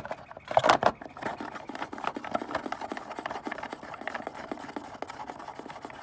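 Hard plastic knocks as a fuse puller and the underhood fuse box cover are handled, then a run of quick small plastic clicks and rattles as the cover is worked into place.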